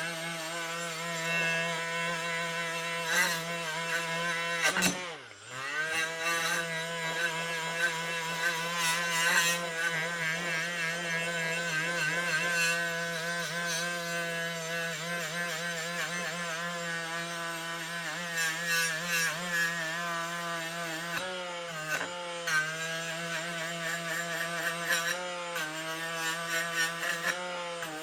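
Electric power tool running steadily while it strips rust and caked paint off a steel scraper blade. The motor note wavers as the blade is pressed in, and about five seconds in the pitch dips briefly and then comes back up.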